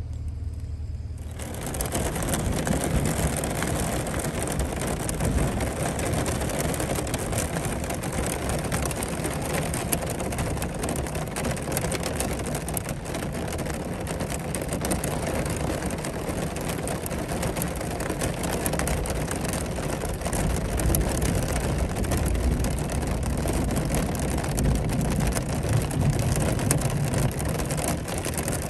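A vehicle's engine and road noise, a dense steady rush with a low rumble, starting abruptly about a second in.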